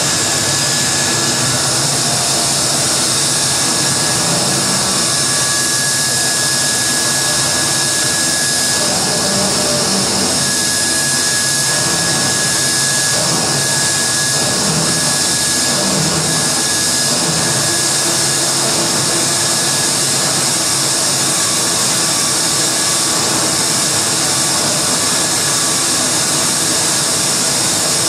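Harsh noise music played live on a microphone and effects pedals: a dense, unbroken wall of distorted noise at steady loudness, with a thin high whistling tone held through much of the first half.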